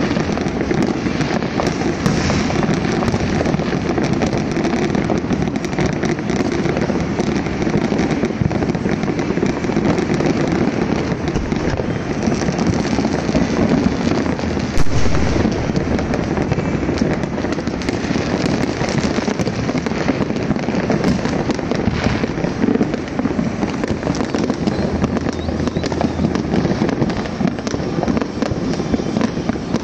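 Many fireworks going off at once: a dense, unbroken crackling and popping of explosions, with one louder bang about fifteen seconds in.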